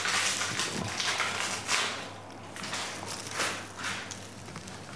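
Repeated short hisses of air, about one a second, from a dental air syringe blown onto the teeth to test their sensitivity, over a low steady hum.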